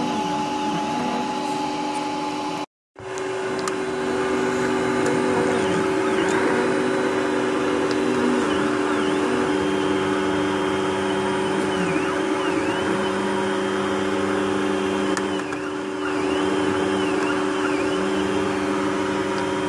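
A Robo 3D desktop 3D printer running a print: its stepper motors hum in several steady tones, some switching on and off every second or so, with short rising-and-falling chirps as the print head speeds up and slows down. The sound cuts out briefly about three seconds in.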